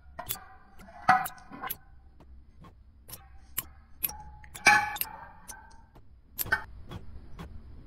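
A metal spoon clinking and tapping against a glass bottle and a glass bowl, a series of irregular sharp clinks that ring briefly, while thick kefir is scraped out of the bottle.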